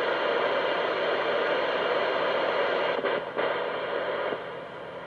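CB radio static: a steady hiss through the radio's speaker, cut off briefly about three seconds in, then coming back and dropping to a quieter level a second later.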